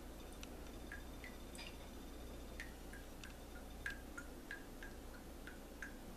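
Melted ghee dripping from a cheesecloth-lined strainer into a cup of ghee: faint, irregular drips, each a tiny plink, about three a second, over a low steady hum.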